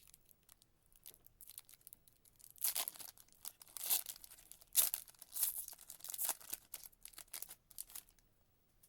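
Foil trading-card pack wrapper being torn open and crinkled, in a run of sharp rustles that starts about two and a half seconds in and stops about eight seconds in.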